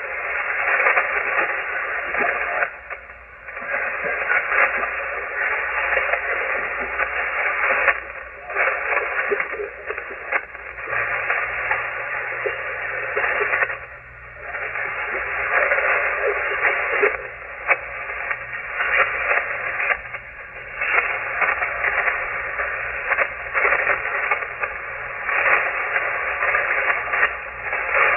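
Shortwave ham radio receiver on the 40-metre band: loud band noise and static in a narrow voice-radio band, with a weak, unintelligible voice signal fading in and out under it.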